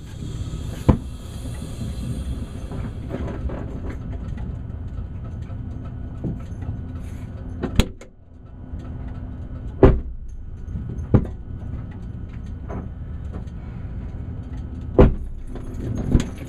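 Honda NSX's 3.2-litre V6 idling with a steady low rumble, heard through the engine-cover glass. About half a dozen sharp knocks break in at scattered moments.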